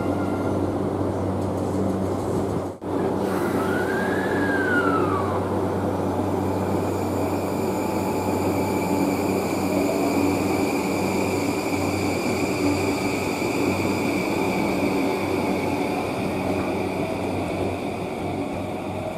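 Electric train running at a station: steady running noise over a low hum, with a whine that rises and then falls about four seconds in.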